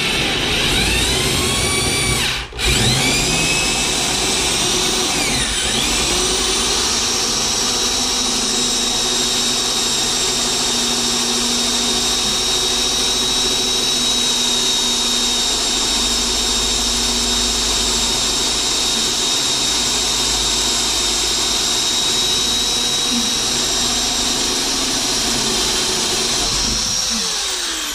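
Electric drill running steadily under load as it bores a large hole through a wooden 2x4, with a brief stop and restart about two and a half seconds in. The motor winds down near the end.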